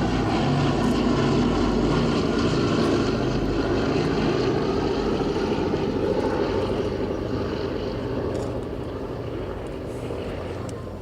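A Boeing B-17G Flying Fortress's four Wright Cyclone radial engines running steadily as the bomber passes, the sound fading away over the last few seconds.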